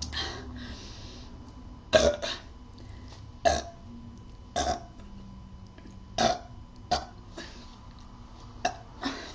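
A person burping repeatedly: about six short, loud burps, a second or so apart, with a couple of fainter ones at the start and end.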